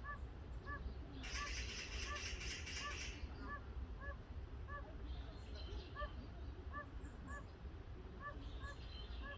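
Oriental fire-bellied toads calling for mates: soft, short, pitched notes repeated about once or twice a second, faint against a low rumble. A raspy buzzing noise sounds over them from about one to three seconds in.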